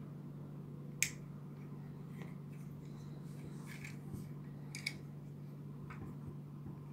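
Sharp clicks of plastic parts on a Papa Toys PPT-02 Fire Engine transforming robot figure as its joints are moved and parts snapped into place by hand. The loudest click is about a second in, with a few more around four, five and six seconds in, over a steady low hum.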